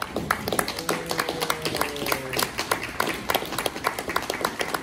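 Audience applause: many hands clapping in a dense, irregular patter.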